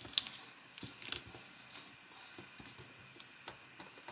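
Origami paper being handled and creased by fingers: scattered soft crinkles, taps and rustles as a paper flap is opened and pressed flat, the louder ones about a fifth of a second and just over a second in.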